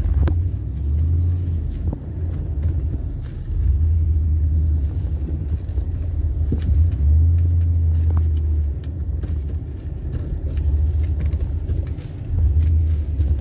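1998 Dodge Dakota's 318 (5.2-litre) V8 running while the truck is driven, heard from inside the cab as a low drone that swells and eases about five times. The owner says the engine is knocking from a worn connecting rod.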